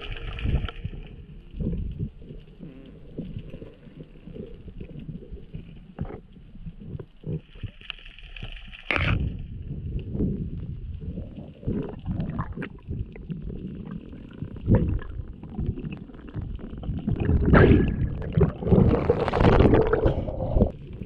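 Muffled water noise heard underwater through an action camera's housing: irregular low rumbles and knocks of water moving against the camera as the diver swims. Louder rushing bursts come about nine seconds in and again near the end, where the camera comes up to the choppy surface.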